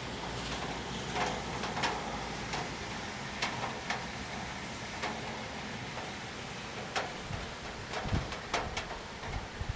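Rain falling with a steady hiss, with individual drops tapping sharply and irregularly on a hard surface, and a couple of low thumps near the end.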